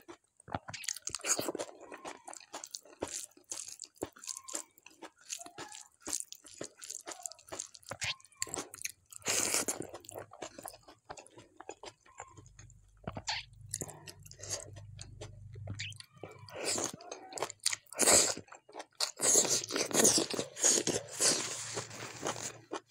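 Close-miked mouth sounds of someone eating rice, mashed bharta and greens by hand: continuous wet chewing with small crunches, smacks and clicks. Near the end comes a louder, denser stretch of rustling and crunching as a tissue is brought to the mouth.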